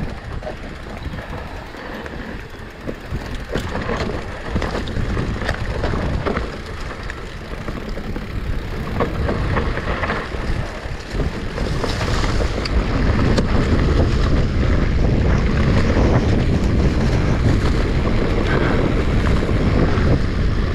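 Wind rumbling on the camera microphone as a Specialized Turbo Levo electric mountain bike rides down a trail, with tyre noise and the bike rattling and knocking over rough ground. The wind rumble gets louder about halfway through.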